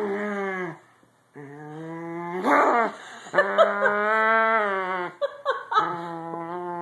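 Corgi grumbling in a string of long, drawn-out growling moans that waver in pitch, with short breaks and a choppier burst about five seconds in: a cranky protest at being made to get off the bed.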